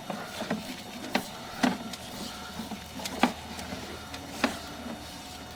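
Sewer inspection camera rig at work as the push cable is fed down the line: a steady machine hum with about six sharp clicks and knocks at uneven intervals.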